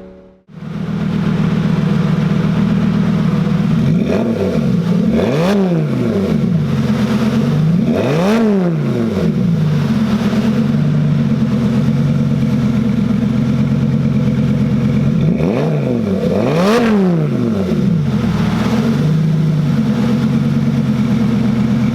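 Lamborghini Gallardo's V10 idling through its new custom exhaust, blipped several times so the pitch rises sharply and falls back to idle.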